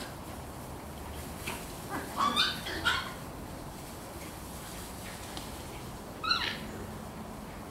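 Jack Russell terrier puppies giving short, high-pitched yips: a quick run of three or four about two seconds in, then a single yip near the end.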